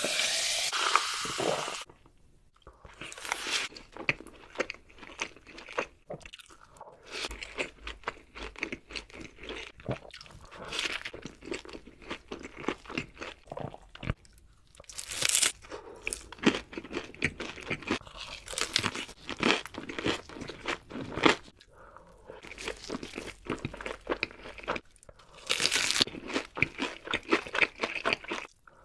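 Close-miked eating of crunchy food: repeated crisp crunches of biting and chewing, coming in clusters with short pauses, opening with a dense, loud burst lasting about two seconds.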